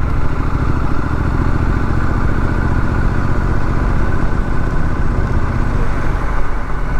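Triumph Street Scrambler's 900 cc parallel-twin engine running steadily, with no revving up or down.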